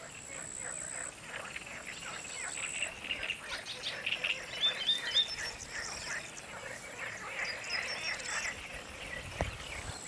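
Pond-edge chorus of frogs croaking and birds calling, thick with short repeated calls, with a few louder calls about halfway through. A high thin insect buzz runs for the first few seconds and comes back faintly later.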